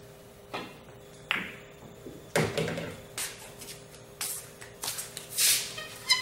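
Pool shot: the cue tip clicks against the cue ball, the cue ball clacks into an object ball, and a ball drops into a pocket with a knock. More knocks and clacks follow, with a brief ringing ping near the end.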